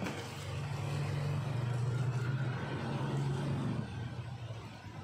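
A nearby motor vehicle's engine hums steadily, swelling to its loudest about two seconds in and fading after about four seconds. Faint rustling of cardboard and plastic wrap comes from items being handled in a box.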